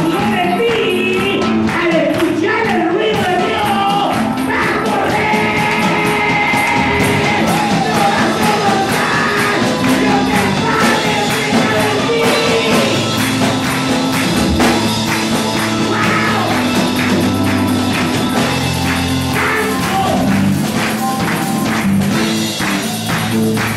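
Upbeat worship music played live: singing over a band, with a tambourine and steady percussion keeping the beat.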